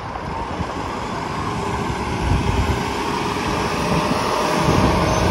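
Road traffic passing on a busy multi-lane road, a steady rush of tyres and engines that grows louder toward the end as a vehicle comes closer.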